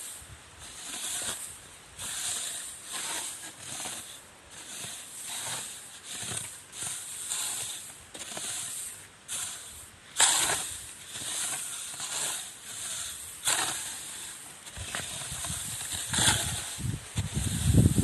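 Rice grain being raked across a drying surface: rhythmic swishing, hissing strokes about once a second, with one sharper, louder stroke about ten seconds in.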